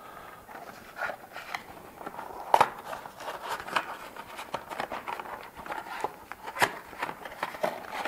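Handling noise from unpacking a cardboard model-kit box: light rustles, scrapes and small clicks as a foam relief piece is taken out. There are sharper ticks about two and a half seconds in and again near the end.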